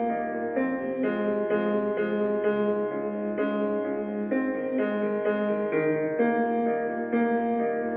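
Piano or keyboard playing a slow run of held chords, one change about every half second to a second, at an even level.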